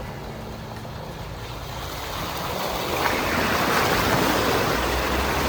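Jeep driving through a water crossing: the engine runs low under a rush of water churned and splashed by the tyres, which swells to its loudest from about three seconds in.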